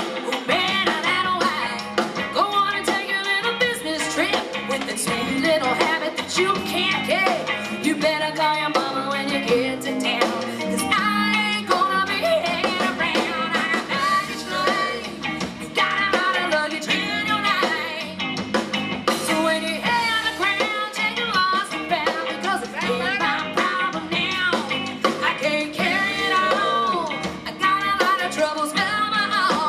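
Live band playing a country-rock song: a woman sings lead over electric guitar, bass guitar and a drum kit.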